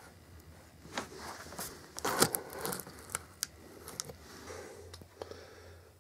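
A pocket knife slitting the clear packing tape along a cardboard box's seam: a run of sharp, irregular tearing and scraping sounds from about one to four seconds in, loudest near the middle, then fainter rustling.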